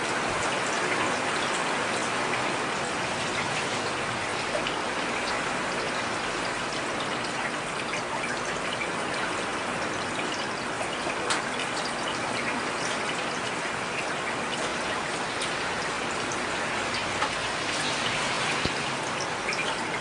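Heavy rain falling steadily: an even hiss with scattered sharper drop hits.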